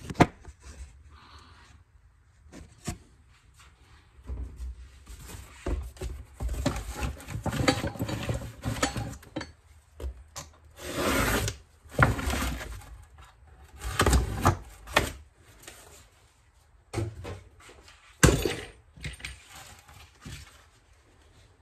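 Handling noises from a motorcycle clutch slave cylinder being taken apart: irregular knocks and clicks of metal parts and tools, with stretches of scraping and rubbing. A sharp knock comes right at the start and another about eighteen seconds in.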